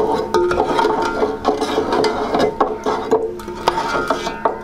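Metal ladle clinking and scraping against a metal cooking pot in repeated short knocks as thick beef paya curry is served out, over background music.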